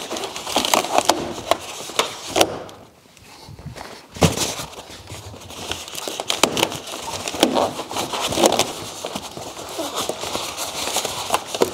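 Latex balloons rubbing and crackling against each other as small balloon clusters are slid along and tied onto a long twisting balloon, with irregular handling noise. There is a short lull about three seconds in.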